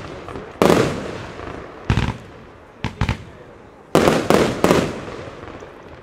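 Aerial fireworks bursting overhead in a series of sharp bangs: two single loud reports in the first two seconds, two lighter ones about three seconds in, then three in quick succession about four seconds in.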